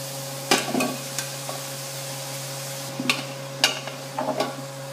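Diced potatoes dropped into a stockpot of frying vegetables, then stirred with a spoon against the metal pot: a few sharp knocks and scrapes over a soft sizzle and a steady low hum.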